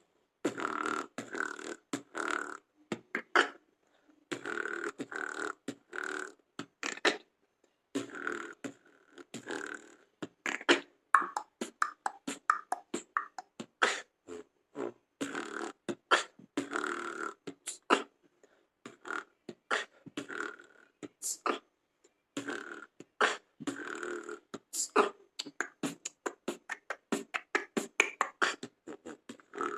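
A man beatboxing a fast rhythmic pattern with his mouth: sharp percussive kick and snare clicks, hissing hi-hat sounds and short voiced hums, broken by a few brief pauses.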